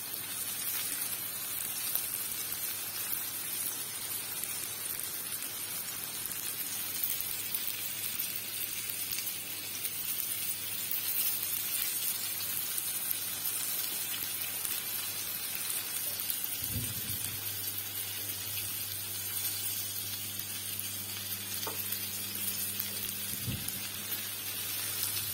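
Flour-coated chicken breast strips sizzling steadily as they shallow-fry in hot oil in a frying pan. A bit over halfway through, a soft knock comes and a low steady hum starts underneath the sizzle.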